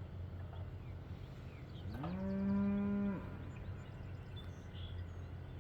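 A cow mooing once, a single call of about a second starting about two seconds in, rising into a steady pitch and dropping off at the end. She is hollering to be let back out to pasture.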